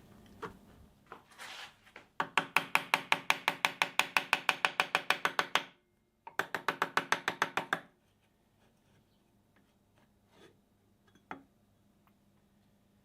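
A fast, even run of sharp mechanical clicks, about seven a second, that breaks off briefly after about three and a half seconds, resumes for about a second and a half, and is followed by a few scattered light knocks.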